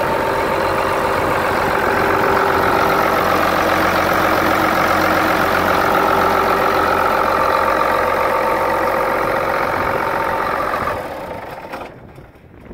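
Allis-Chalmers 7040 tractor's six-cylinder diesel engine idling steadily. The sound drops away about eleven seconds in.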